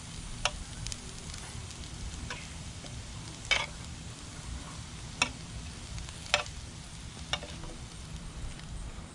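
Small potatoes and boiled eggs sizzling in an electric skillet, with about six sharp clicks of a utensil striking the pan as they are turned.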